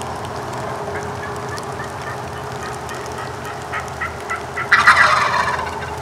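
Wild Osceola turkey gobbler gobbling. A few short notes come first, then one loud rattling gobble about five seconds in that fades over about a second.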